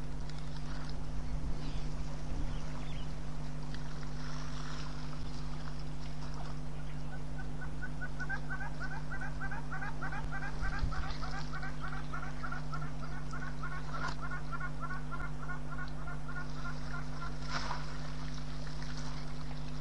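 A bird calling in a long, even series of short repeated notes, about three or four a second, starting some seven seconds in and stopping after about ten seconds, over a steady low hum.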